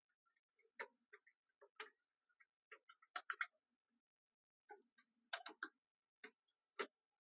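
Faint irregular clicks and taps from small parts being handled inside a Dell OptiPlex 3000 mini PC during a RAM upgrade, with a short high squeak near the end.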